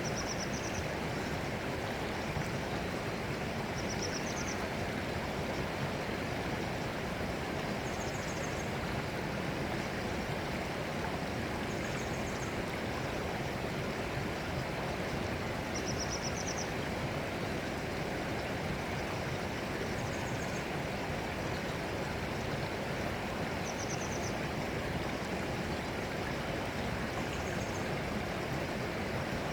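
Steady rushing of flowing stream water, with short high chirps recurring about every four seconds.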